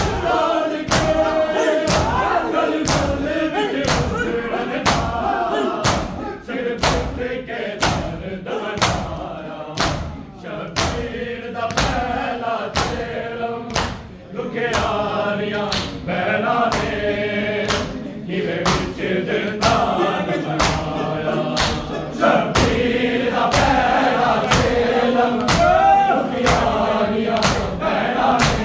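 Men chanting a Punjabi noha (Shia lament) together, with the group's rhythmic chest-beating (matam): sharp hand slaps in a steady beat, roughly three every two seconds.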